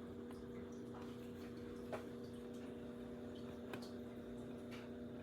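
Faint steady hum of a few held tones, with a handful of light ticks scattered through it, the clearest about two seconds in.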